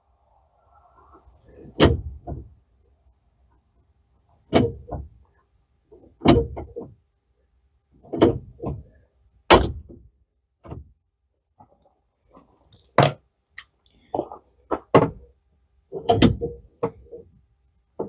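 Hand pop-rivet tool squeezed again and again to set blind rivets: a series of sharp clicks and snaps, several close together in groups every second or two.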